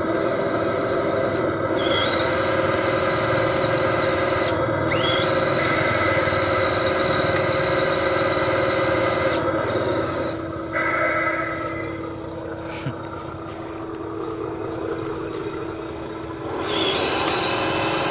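Electric drive motor and gearbox of a radio-controlled dump truck whining steadily as the loaded truck churns through deep mud. A higher whine comes in about two seconds in, drops out around the middle and returns near the end.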